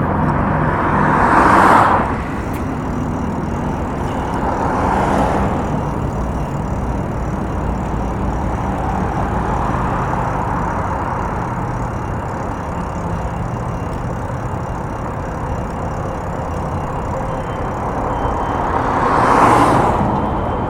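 Road traffic: a steady rumble of vehicles with several cars passing by close, the loudest swelling in about two seconds in and again near the end.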